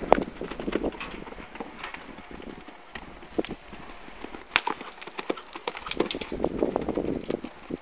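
Hoofbeats of a cantering horse on a dirt arena as it is ridden over show jumps, with a sharp knock about four and a half seconds in.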